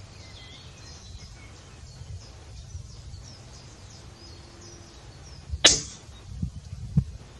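A single shot from a PCP air rifle: one sharp crack about two thirds of the way in, with a smaller low knock about a second and a half later.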